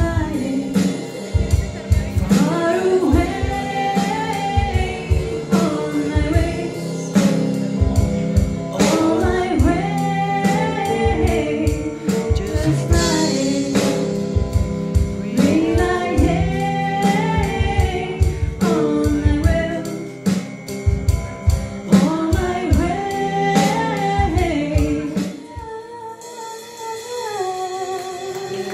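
Woman singing a country-pop song live, accompanied by nylon-string acoustic guitar and drums keeping a steady beat. About 25 seconds in the drums drop out and the music turns quieter.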